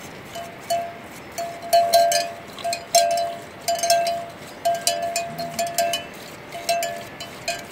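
Livestock bells clanking and ringing in an irregular jangle as the animals move, many strikes overlapping. A short low animal grunt comes about five seconds in.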